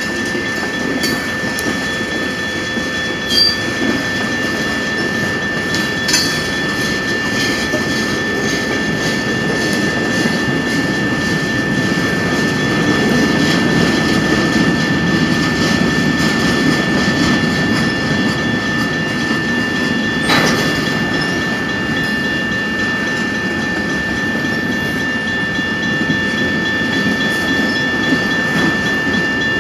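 CN freight train cars rolling through a grade crossing: a steady rumble of wheels on rail with occasional clicks over rail joints and a louder clank about twenty seconds in. The crossing bell rings throughout as a steady high tone.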